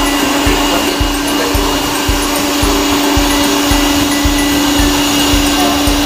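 Electric hand mixer on a stand running steadily, its beaters whipping a creamy ice cream base in a stainless steel bowl: a steady motor hum and whine with a low pulse about twice a second.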